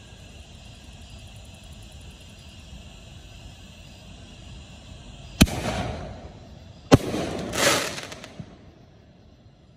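Two aerial firework shells bursting about a second and a half apart. Each is a sharp bang followed by a second or so of crackle from glittering stars, the second tail swelling once more before it fades.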